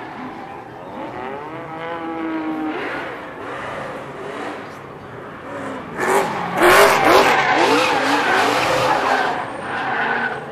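Race car engine revving up and down while the car drifts with its tyres skidding. About six seconds in it becomes much louder, a hard burnout with the engine revving high and the tyres screeching through a cloud of smoke, easing off near the end.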